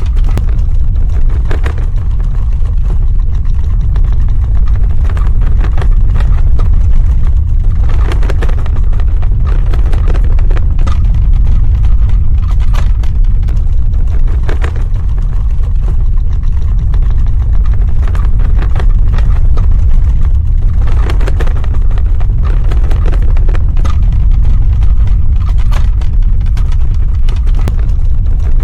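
Earthquake sound effect: a loud, continuous deep rumble with irregular crackling and rattling over it every few seconds.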